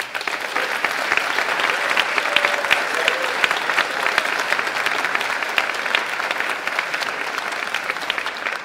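Audience applauding: dense, steady clapping from a large crowd that starts all at once and eases slightly toward the end.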